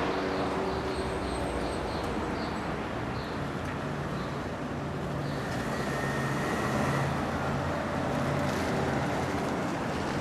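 Hyundai rental car driving along: steady engine and road noise heard from inside the cabin.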